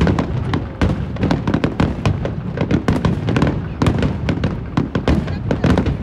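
Fireworks display going off: a dense, rapid run of bangs and crackles, several a second, with deep booms underneath.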